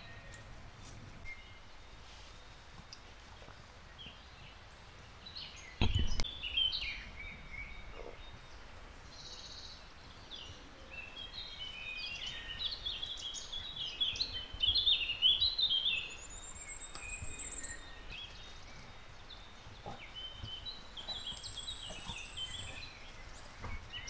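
Several wild birds singing and calling, short chirps and warbling phrases overlapping, with two high thin trills in the second half. A single low thump about six seconds in is the loudest sound.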